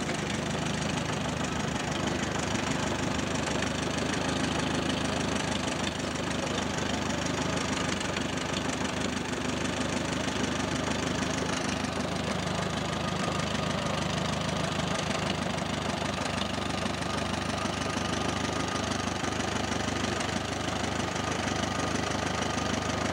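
1936 Allis-Chalmers tractor's four-cylinder engine idling steadily.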